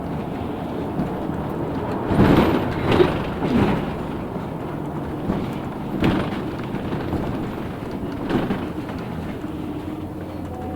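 Cabin of a LiAZ 6213.65 articulated bus on the move: steady running noise, with several sharp knocks and rattles from about two seconds in, and a faint steady whine near the end.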